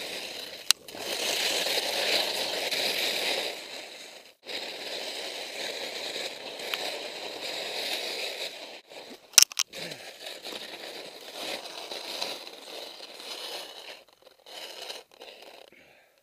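Skis scraping and crunching over firm, crusty snow, with a couple of sharp knocks along the way.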